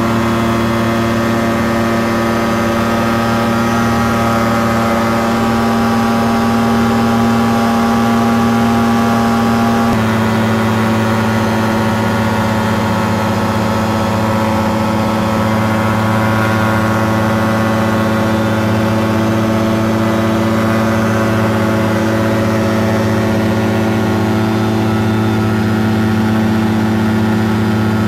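Caprice 21 ultralight's engine and propeller droning steadily in cruise flight, heard from inside the cockpit. The engine note steps slightly in pitch about ten seconds in.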